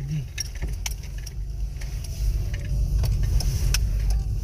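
Car engine and road noise heard from inside the cabin as the car moves slowly: a steady low rumble, with scattered light clicks.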